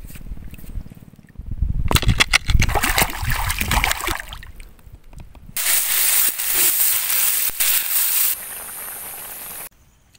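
Shallow seawater splashing and sloshing in loud, choppy strokes for a few seconds, then a steady bright sizzle of chili paste frying in a wok, which fades down near the end.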